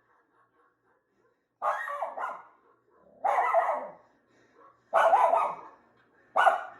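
Schnauzer barking at the television: four short bouts of loud barks about a second and a half apart, the first a quick double bark.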